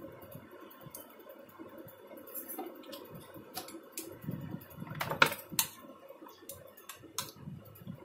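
Light clicks and knocks of a circuit board and its wiring being handled, scattered irregularly over a faint steady hum, with two sharper clicks a little after five seconds in.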